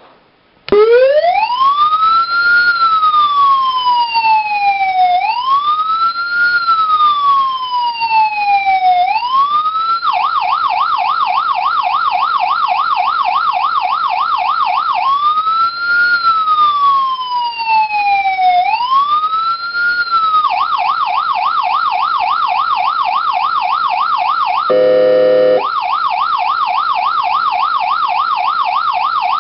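Signal SA-441 Magnum electronic siren sounding a slow wail that rises and falls about every four seconds, switching to a fast yelp of about four warbles a second, back to the wail, then to the yelp again. Near the end a short steady electronic air-horn blast cuts in for about a second before the yelp resumes.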